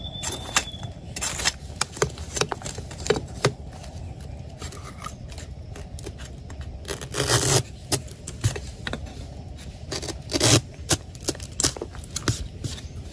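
Irregular rustling, scraping and crackling of leaves, twigs and undergrowth being pushed through and handled while foraging, with two louder rustles about seven and ten seconds in.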